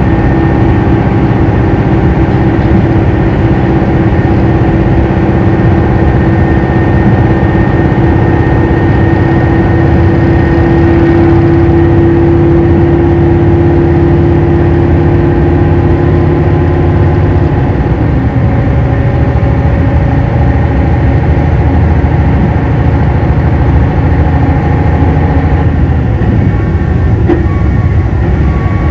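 Running sound from aboard a KiHa 261 series 5000-subseries diesel railcar: the diesel engine drones steadily under way with rail noise. About 18 seconds in, the engine's strongest tone stops and its note changes.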